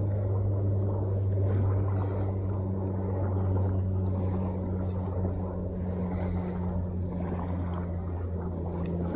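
A motor's steady low drone holding one pitch, with a faint wash of noise over it.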